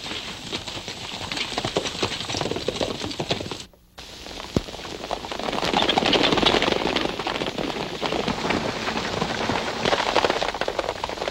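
Hoofbeats of several galloping horses, a dense clatter on a hissy old film soundtrack; the sound drops out briefly about four seconds in, then comes back louder.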